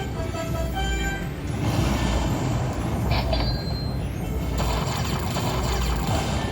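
Lightning Link slot machine playing a run of short electronic chime notes, then a dense noisy whoosh of its spin and bonus sounds with a brief high tone about three seconds in, over a constant low casino-floor rumble.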